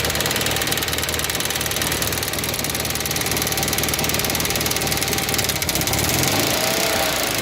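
A petrol car engine idling cold on LPG, with the AEB gas injectors clicking loudly and rapidly and the engine running with small misfires. The injector knocking and uneven running are a cold-engine problem after the switch to gas, which the owner says goes away once the engine is fully warm.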